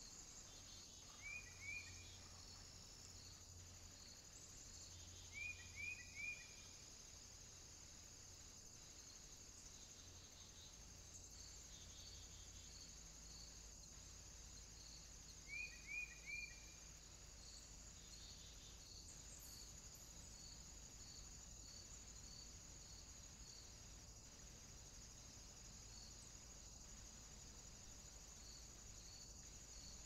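Faint steady insect chorus, crickets or cicadas, with a soft regular pulse about once a second. Three times it is broken by a brief group of two or three quick, falling high chirps.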